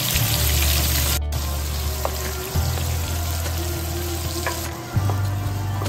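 Sliced onion and garlic sizzling in hot oil in a frying pan, stirred with a wooden spoon; a steady hiss that drops out for a moment about a second in.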